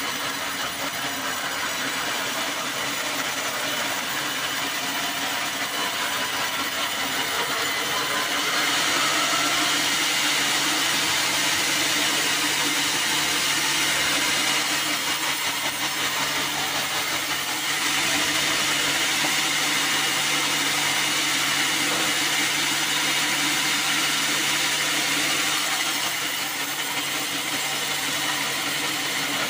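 Band sawmill running and sawing through a black acacia log: a steady hiss of the blade in the wood over the mill's motor hum. It gets louder about a third of the way through, with two short dips, and eases off a few seconds before the end.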